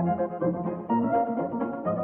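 Instrumental background music with several instruments playing notes together.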